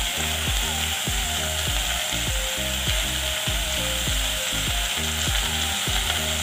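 Raw basmati rice and onions sizzling in hot oil in a steel pot. Background music with a steady beat plays underneath.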